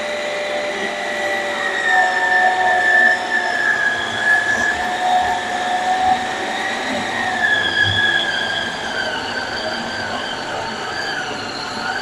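Mixer-grinder food processor motor kneading bread dough in its jar, a whine that wavers slowly up and down in pitch as the dough loads the blade.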